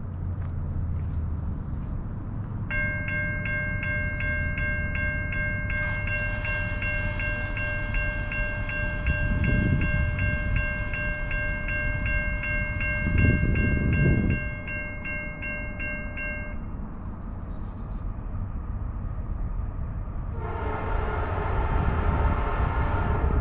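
Railroad grade-crossing bell ringing rapidly, about three strokes a second, over a low rumble, then stopping about 16 seconds in with the crossing gate down. About 20 seconds in, the approaching freight train's lead locomotive, a GE C40-9W, sounds its air horn as a chord and holds it.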